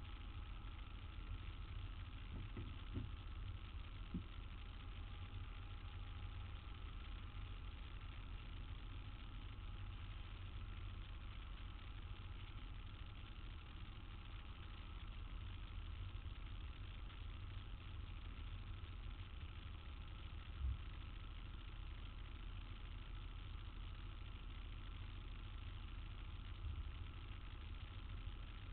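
Steady low rumble of city street traffic with engines idling, and a few brief knocks, the clearest about two-thirds of the way through.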